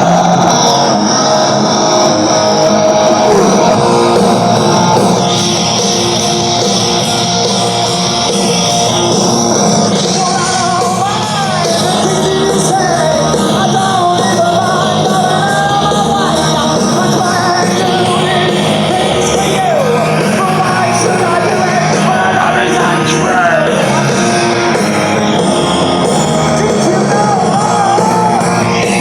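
Rock song playing: a singer over loud, full electric guitars and drums.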